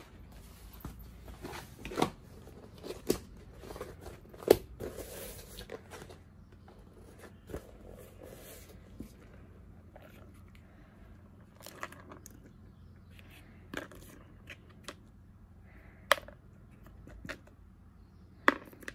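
Handling noise from the parts of a Louis Vuitton Keepall: stiff coated canvas and a leather-edged base insert with metal studs being picked up and moved about on a table. It comes as scattered sharp clicks and taps, the loudest about four and a half seconds in, with brief rustling.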